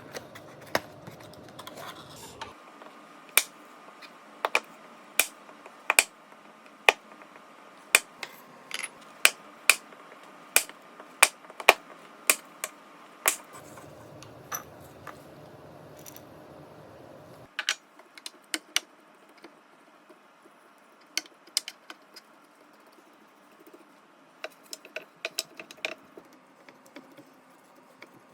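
Baking tools and dishes being handled, giving irregular sharp clicks and taps, about one to two a second, thinning out past the middle.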